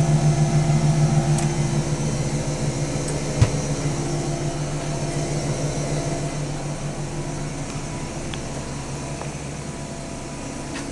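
Washing machine running with a steady mechanical hum that slowly fades, with a single sharp knock about three and a half seconds in.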